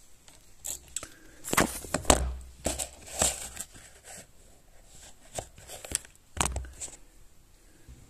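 Handling noise from a multimeter and its test leads being moved about on a hard worktop: irregular clicks, rustles and knocks, with dull thumps about two seconds in and again past six seconds.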